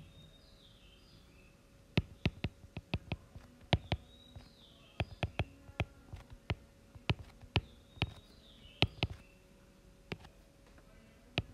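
Stylus tip tapping and clicking on a tablet's glass screen while writing by hand. It is an irregular run of sharp clicks that starts about two seconds in and stops a couple of seconds before the end.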